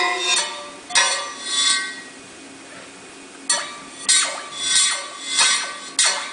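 Percussion playing: sharp struck notes that ring on. A few strikes come at the start, then a pause of about a second and a half, then strikes resume at a steady pace, roughly one every 0.6 seconds.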